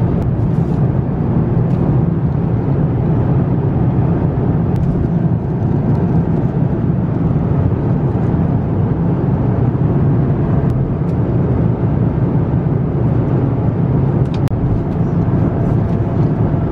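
Steady low drone of an airliner cabin in flight: the jet engines and rushing air heard from a passenger seat.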